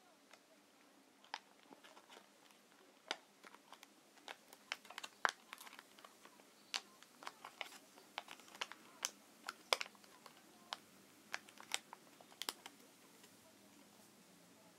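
Folded paper balloon crinkling as fingers press and pinch its sides to square it into a cube: a scatter of short, irregular paper crackles, thickest in the middle.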